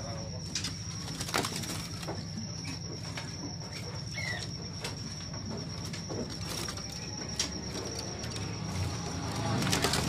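Caged birds at a bird shop: scattered sharp clicks and flutters from the cages, and one short chirp about four seconds in. Underneath run a steady high-pitched tone and a low hum.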